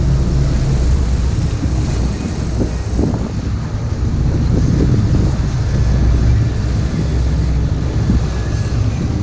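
Steady low rumble of a sportfishing boat's engines running, mixed with water wash along the hull and wind buffeting the microphone.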